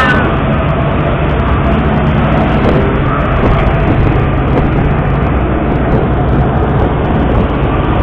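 Utility boat's engine running steadily under way, a loud, even low drone.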